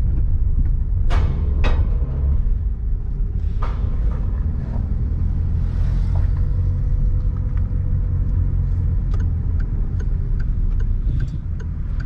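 Steady low road and engine rumble of a Citroën car driving, heard from inside the cabin. A few sharp knocks come in the first four seconds as the wheels hit bumps in the potholed road.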